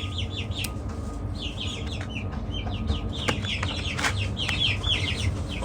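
Chickens clucking and chirping, short calls repeating several times a second, with a few sharp clicks about three and four seconds in.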